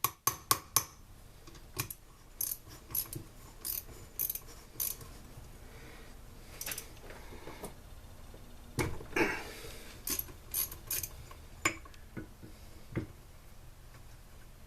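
Tools and small metal engine parts clinking and clicking during hand disassembly of a two-stroke backpack blower. A quick run of clicks comes in the first second, single clinks follow every second or so, and there is a longer scraping rustle about nine seconds in.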